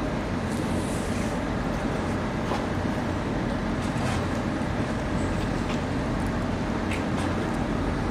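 Steady low engine rumble of a large container ship heard across harbour water, with a few faint clicks.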